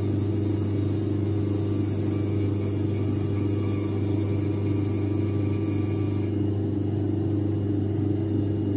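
Shoe-repair machine's motor running steadily with a low hum while the sole's edge is held against its grooving head, cutting the channel that the stitching will lie in.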